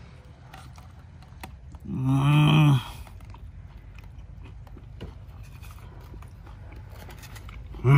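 A person biting and chewing a soft fish taco, heard as faint wet clicks of chewing. About two seconds in comes one loud, short hum of enjoyment, slightly falling in pitch.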